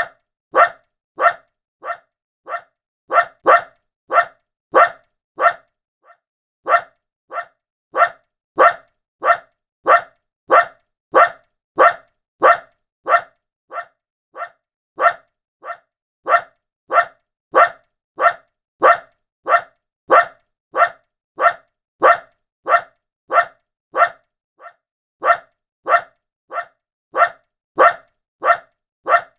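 A small dog's short single woof, repeated over and over at about one and a half barks a second. A few of the barks are softer than the rest.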